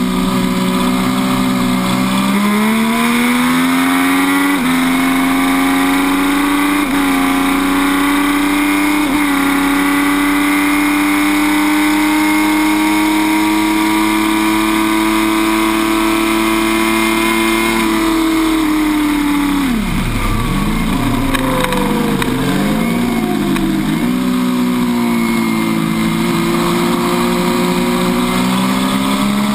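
MV Agusta F3 800's three-cylinder engine heard onboard at full throttle, climbing through the gears with quick upshifts and holding high revs. About two-thirds of the way in it drops sharply under hard braking, rising and falling several times through a run of downshifts, then picks up again near the end.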